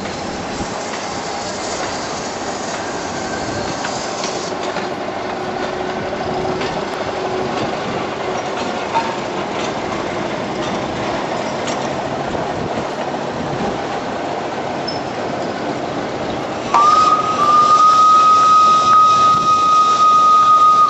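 Miniature resort train running along its small-gauge track with a steady rolling noise. Near the end a loud, high whistle starts with a short upward slide and holds steady for about four seconds.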